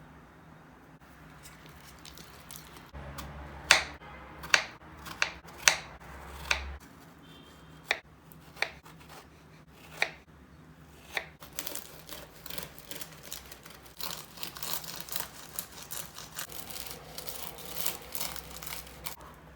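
Kitchen handling sounds: about five sharp clicks or taps a few seconds in, then scattered clicks, then a long stretch of quick crackling.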